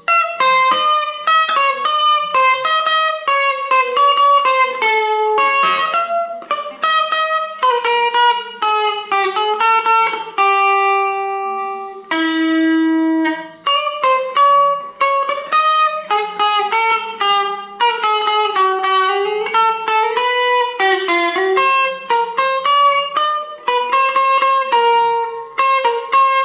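Stratocaster-style electric guitar played solo: a single-note melody picked in quick runs of short notes, with two long held notes about halfway through.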